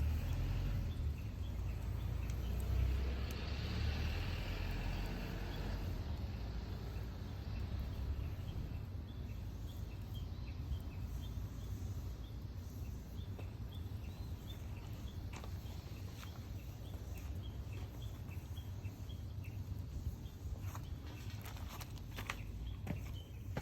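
Outdoor ambience: a low rumble with a steady series of short, high chirps at about two a second, and a few sharp cracks near the end.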